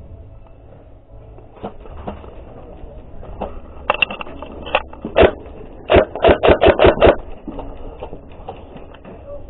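Sharp clacks over a low rumble: a few scattered ones, then a quick even run of about seven in a second, about six seconds in.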